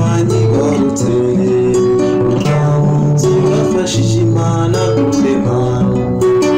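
Two nylon-string classical guitars played together, a steady bass line moving under plucked chords, with a man singing along.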